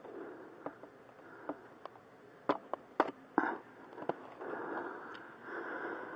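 Metal clinks and knocks from a rear brake caliper bracket being handled and fitted back into place by hand, with a cluster of sharp knocks near the middle and rustling handling noise in the later part.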